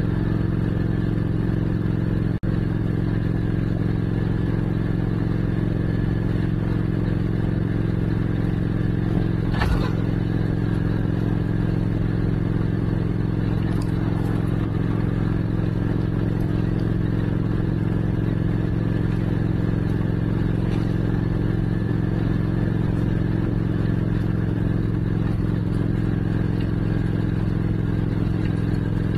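Motorcycle engine running at a steady speed while cruising, its pitch holding even throughout. A single sharp click about two seconds in.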